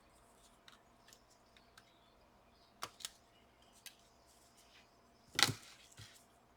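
Light clicks and taps of small laptop parts and cables being handled and pressed into place, with a pair of sharper clicks about three seconds in and a louder click about five and a half seconds in.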